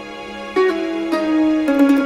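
Instrumental background music. It grows louder about half a second in, when a new phrase of notes starts.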